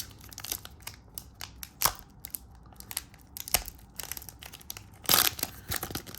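Trading cards and their pack being handled: soft clicks and rustles of cards sliding against each other, with sharper snaps about two and three and a half seconds in and a louder bout of rustling near the end.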